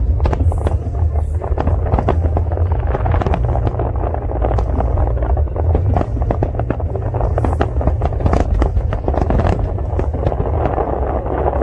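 Aerial fireworks bursting and crackling in a rapid, irregular string of sharp pops, over a steady low rumble.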